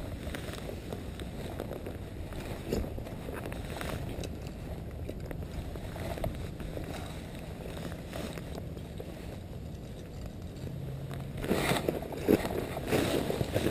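Wind rumbling on the microphone with faint rustling, then, near the end, footsteps crunching through dry fallen leaves.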